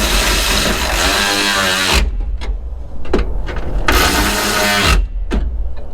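Power tool driving in the radiator mounting bolts: it runs for about two seconds with a rising motor whine, stops, and runs again for about a second, with a few sharp clicks between the runs.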